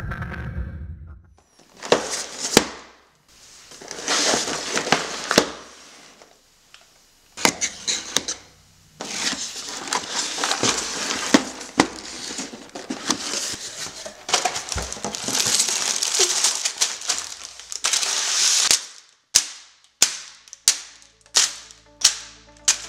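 Unboxing a LEGO set: the cardboard box handled and opened and the plastic bags of LEGO pieces rustling and crinkling in bursts, then a run of sharp clicks about two a second near the end as the bags are set down.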